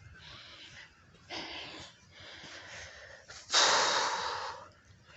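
A person breathing hard close to the microphone, winded from walking in sand: a short exhale a little over a second in, then a much louder, longer one about three and a half seconds in.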